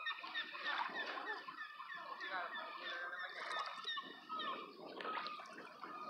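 A flock of birds calling, many short calls overlapping one another without a break.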